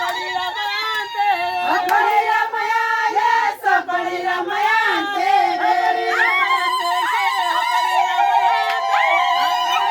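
A group of high voices singing together, many voices overlapping, with crowd noise underneath.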